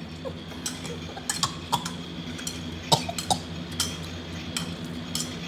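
Scattered light clicks and taps of plastic toy food and utensils handled on a toy grill, over a steady low hum.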